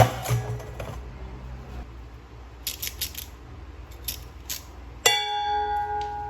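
Several small clicks and clinks, then about five seconds in a single struck, ringing chime-like tone that holds for about two seconds.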